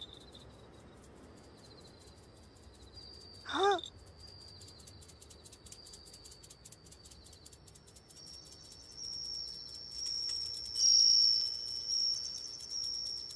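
Crickets chirping in a high, rapid trill that grows louder in the second half. A short kitten mew comes about three and a half seconds in.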